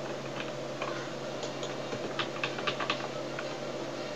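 Computer keyboard keys clicking in quick little clusters of ticks, the presses of a repeated Ctrl+Z undo, over a faint steady electrical hum.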